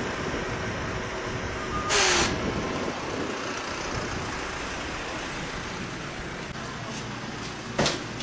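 Ambulance van driving past with a steady engine and road noise, a short loud hiss about two seconds in, and a sharp knock near the end.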